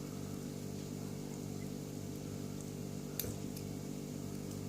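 Steady low electrical hum with a faint click about three seconds in.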